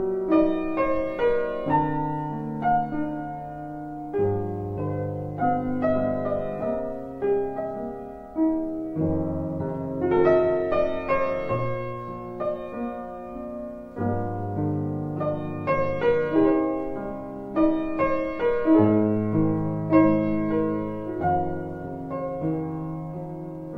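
Background piano music: a melody of struck notes over held low bass notes.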